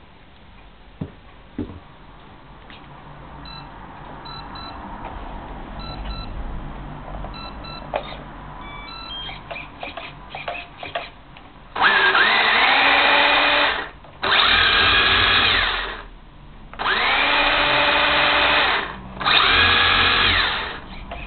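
Electric motor and gearing of a 1/16-scale Acme Fire Wolf RC buggy, wheels spinning free, run up four times in bursts of about two seconds, each with a whine that rises in pitch as it spins up. Before the runs come a couple of clicks and a few faint short beeps.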